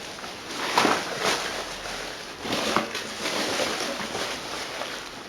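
Rustling, scraping and light knocks from clutter, cardboard boxes and packing material being picked up and moved about, several short irregular handling sounds.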